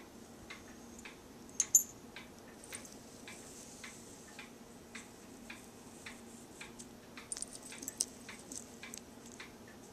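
Faint, even ticking about twice a second, with a few louder, brighter clinks of small metal charms and beads on a costume wig being handled, about two seconds in and again around seven to eight seconds.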